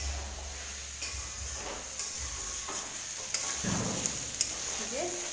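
Chicken curry sizzling in a metal wok as it is stirred with a spatula, the spatula scraping and clicking against the pan a few times in the second half.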